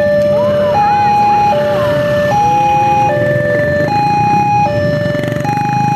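Railway level-crossing warning alarm from a pole-mounted loudspeaker, sounding a two-tone signal that switches between a high and a low tone about every 0.8 seconds. It signals that a train is approaching and the barriers are down.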